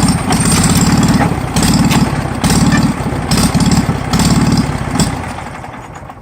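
Ford 14-71 hay baler running off its 17 hp Wisconsin engine, the engine note pulsing in a rhythm of about once a second with sharp mechanical knocks from the baler. The sound fades away near the end.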